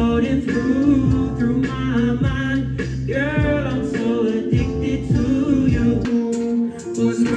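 Live hip-hop performance: a man sings into a microphone over a backing track, with a steady held synth tone and deep bass hits that slide down in pitch about once a second, played through a club sound system.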